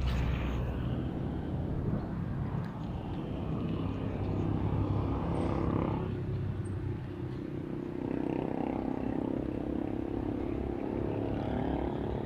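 Engines of passing motor vehicles, a steady traffic rumble, with a fresh engine hum coming in about eight seconds in.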